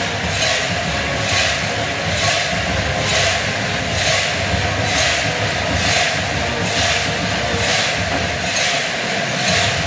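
Stadium crowd and marching band with a steady din, under a bright metallic crash repeating on an even beat about once a second, like percussion or cowbells keeping a slow cadence.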